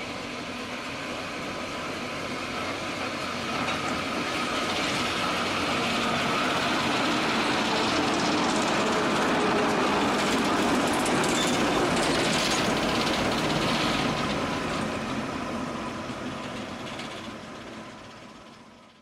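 Class 08 diesel-electric shunting locomotive, with its six-cylinder English Electric diesel engine, running slowly past at close range. The engine and rolling-wheel noise grow louder up to about the middle, then fade as it draws away.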